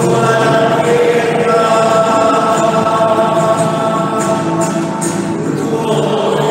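A hymn sung in long held notes to a strummed classical guitar.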